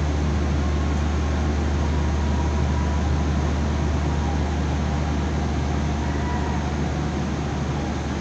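Steady, unchanging low machinery drone with an even hiss over it, typical of large industrial ventilation or plant running continuously.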